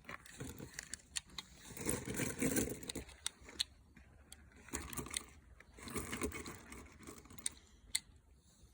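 Cartridges being pressed one by one into a pistol magazine: irregular small metallic clicks, with some handling rustle in between.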